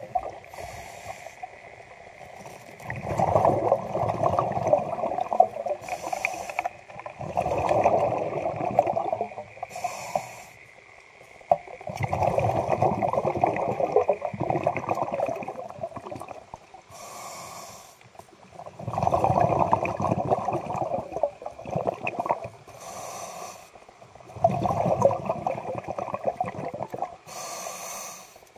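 Scuba diver breathing through a regulator underwater: a short hiss of each inhalation, then a longer, louder rush of exhaled bubbles, repeating about every five to six seconds.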